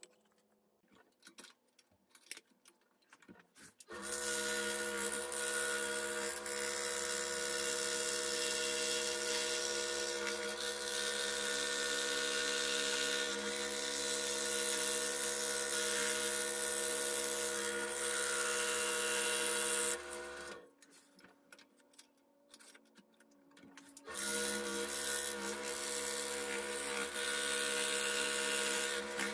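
Scroll saw running and cutting thin plywood: a steady motor hum with the blade's rasp through the wood. It starts about four seconds in, stops for a few seconds past the middle, then starts again. Before it, a few soft handling clicks.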